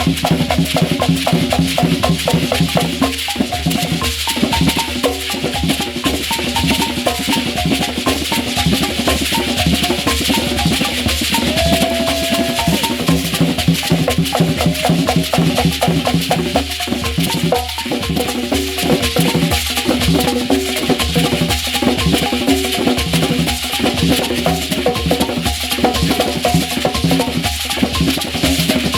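Ugandan traditional instrumental ensemble playing a fast, steady rhythm: drums and rattling shakers with rapidly repeated pitched struck notes.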